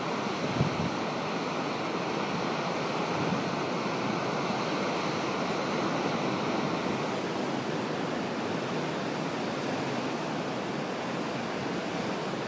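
Atlantic surf breaking over rocks: a steady rush of waves.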